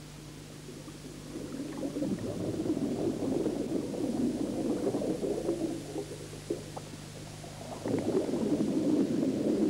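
Underwater bubbling and rumbling from a scuba diver's exhaled breath, in two surges: one from about two seconds in, and a second near the end.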